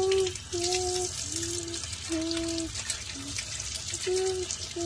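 Dishwasher running with water spraying, and over it a string of steady pitched hums that change note about every half second, like a sung tune.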